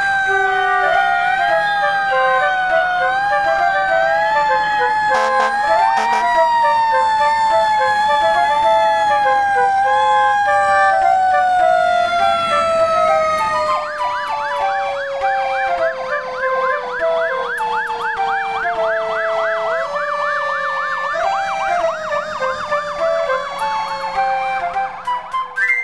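Fire truck sirens sounding. One siren tone slowly falls in pitch with a few brief rises, while a second siren wails and then switches to a fast yelp about halfway through. The sirens fade out at the end.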